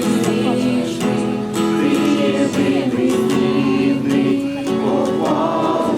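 A group of people singing a song together to acoustic guitar strumming.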